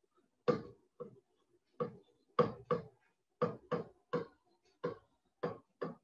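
A stylus tapping on a digital writing surface as numbers are written: about eleven short knocks, roughly two a second.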